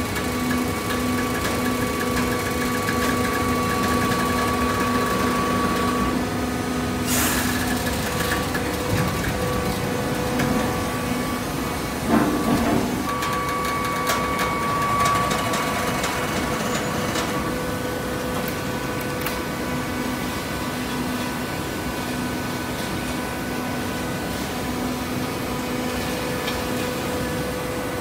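Fully automatic horizontal hydraulic baler running: the steady hum and whine of its hydraulic power unit. A sharp clack comes about seven seconds in and a knock around twelve seconds in.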